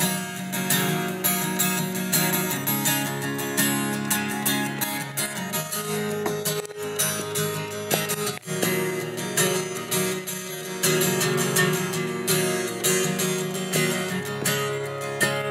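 Acoustic guitar strummed with a pick, a rhythmic instrumental passage of chords without singing, with a momentary break about eight seconds in.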